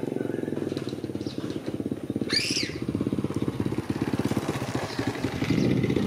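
Small motorcycle engine running as the bike approaches, growing louder near the end. A brief high call rises and falls once about two and a half seconds in.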